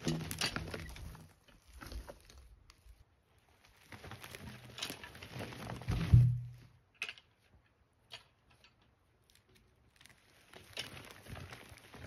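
Heavy Douglas fir logs being rolled, a rough rumbling scrape that ends in a heavy thud about six seconds in as a log drops onto the sawmill's loading rails.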